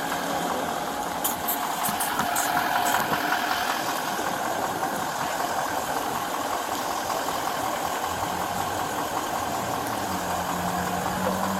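Motor vehicle engine idling steadily, with a few faint clicks about a second or two in.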